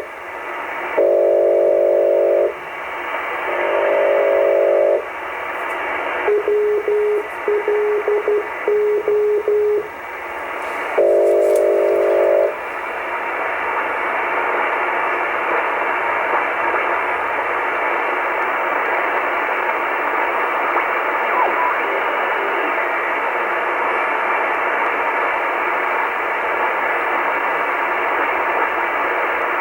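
Shortwave receiver tuned to the maritime coastal station WLO: its data signal comes as bursts of several steady tones about a second and a half long, with a stretch of short single-tone beeps in the middle. From about twelve seconds in only steady static hiss is left.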